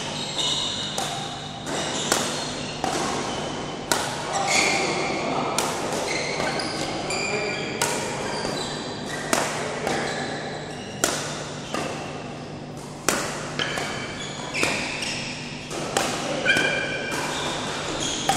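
Badminton rackets hitting shuttlecocks in rallies on several courts, sharp irregular hits every half second to a second that echo in a large hall, mixed with short squeaks of shoes on the court floor.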